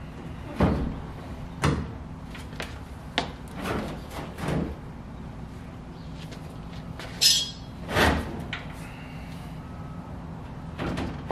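Fiberglass hood being pushed and shifted into place on a Chevy S10, giving a series of dull thumps and knocks, with a short rasp about seven seconds in, over a steady low hum.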